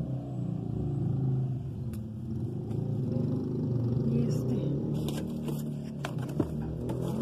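A steady low rumble, with rustling and a few sharp clicks from products being handled and moved in a cardboard box, mostly in the second half.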